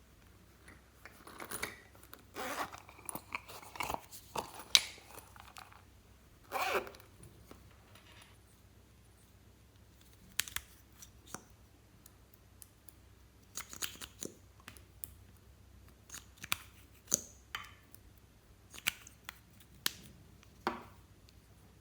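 Clear slime mixed with floam being worked by hand: irregular crackles, sharp clicks and short squelches, bunched in the first several seconds and then coming as scattered single clicks.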